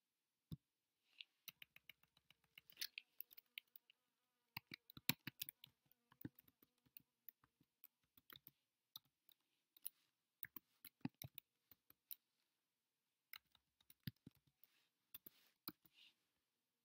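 Computer keyboard typing: quiet key clicks in quick, irregular runs, with short pauses about four seconds and twelve seconds in.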